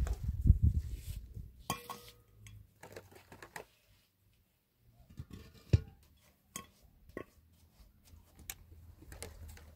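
Steel trowel scraping and tapping on wet cement and concrete blocks: short scrapes and a scatter of sharp clicks, with a low rumble in the first second and a brief lull in the middle.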